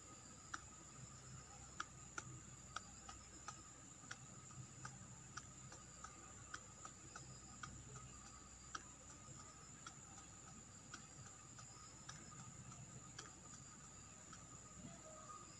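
Near silence: a faint steady hiss with soft, evenly spaced ticks, about one and a half a second.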